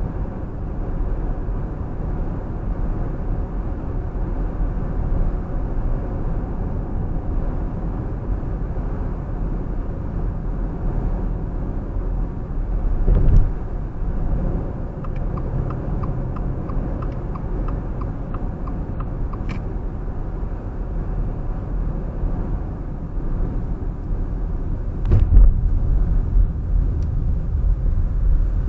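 A car driving: steady low road and engine rumble, with a thump about halfway through and a louder one near the end. A run of faint, evenly spaced ticks lasts about four seconds in the middle.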